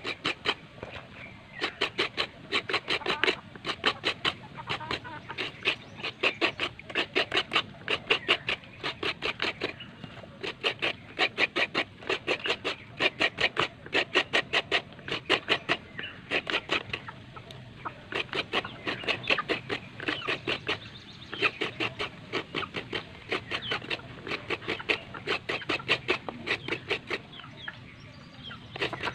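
Fresh coconut meat being scraped out of a halved coconut on the serrated blade of a wooden bench coconut grater (kudkuran). Rhythmic rasping strokes come about four a second, in runs with short pauses between them.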